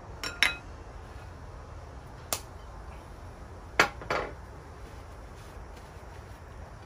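Clinks and knocks of a spoon, bowl and bottle on a glass tabletop: two quick clinks near the start, a single one after about two seconds, and the loudest knock about four seconds in as the bottle is set down, followed by a second knock with a brief ring.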